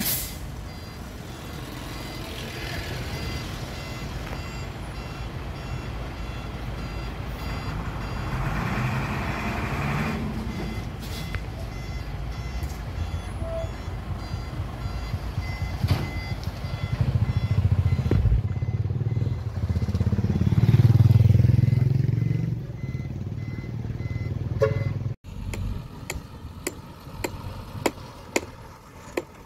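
Dump truck engine running with its bed tipped up, revving up briefly about a third of the way in and louder again around three-quarters of the way through, while a reverse alarm beeps over it. Near the end the sound cuts off abruptly to a quieter engine with scattered clicks.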